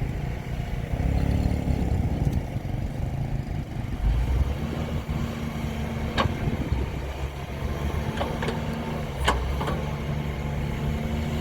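Heavy diesel engine running steadily, with a few sharp clanks near the middle.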